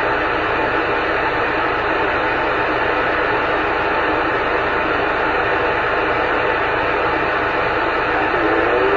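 CB radio receiver hissing with steady band static between transmissions, an open channel with no one talking. A faint rising whistle comes in near the end.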